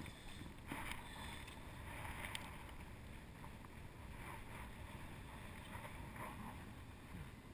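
Shallow water sloshing and splashing around a hand as it reaches in and lifts out a hooked bream, with a steady low wind rumble on the microphone.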